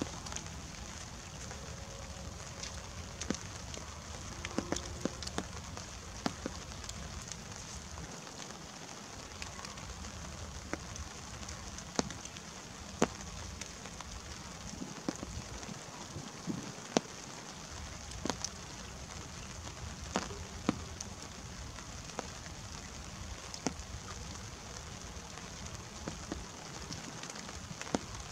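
Light rain falling: a steady hiss with scattered sharp ticks of single drops landing close by.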